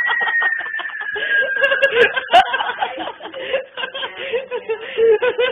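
People snickering and chuckling, broken up with bits of voice; a thin high tone slides slightly down in pitch over the first couple of seconds.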